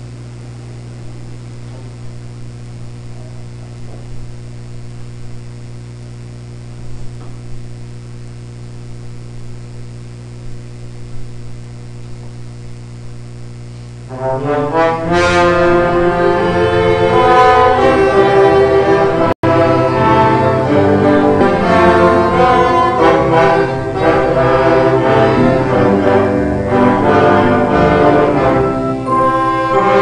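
A steady electrical hum, then about halfway through a brass-led orchestra starts playing a hymn loudly.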